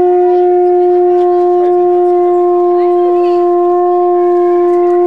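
Conch shell (shankha) blown in one long, loud, steady note, the auspicious call sounded at a Hindu wedding.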